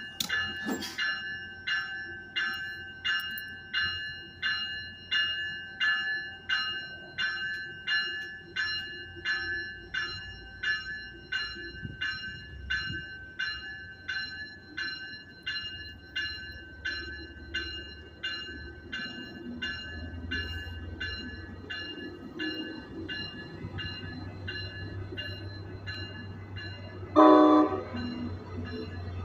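A train's bell ringing steadily, about one stroke a second, fading away over about twenty seconds. A low rumble of the train rises beneath it. Near the end comes one short, loud blast of the train's horn.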